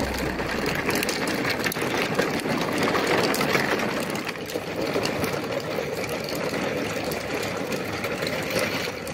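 Plastic toy trucks' wheels rolling over rough concrete, a steady clattering rattle of many small clicks.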